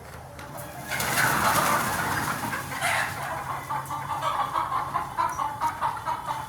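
Sonali hens calling: a loud outburst starts about a second in, then a quick run of short clucks, several a second, through the second half.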